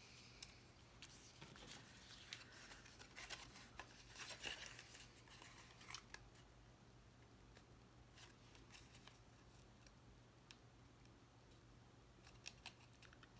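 Faint rustling and handling of cardstock paper pieces, strongest in the first few seconds, followed by a few light clicks and taps.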